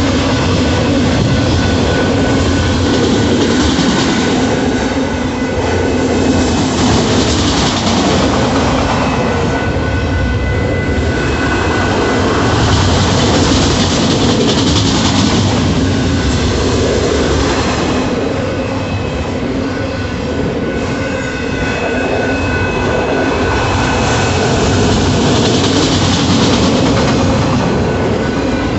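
Union Pacific autorack freight cars rolling past at close range: a steady rumble and clatter of steel wheels on the rail, with louder swells every few seconds and a thin, steady high wheel squeal above it.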